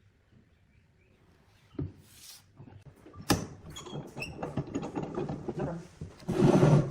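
Handling noises of wood and metal parts with the saw switched off: a knock, then a sharp click, then a string of small clicks and knocks, ending in a louder rubbing or sliding noise.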